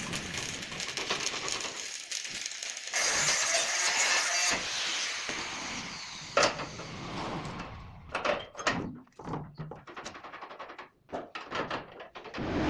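Electric arc welding on steel crackling and hissing for the first six seconds, louder from about three seconds in. After it stops, a sharp metal clank and then a run of irregular knocks and clatters.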